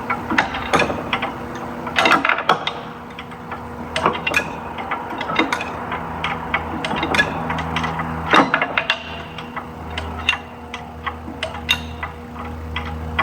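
Hand tools working on metal parts: irregular sharp clicks and light knocks, with some quick ratchet-like clicking, as fasteners and brackets are worked loose.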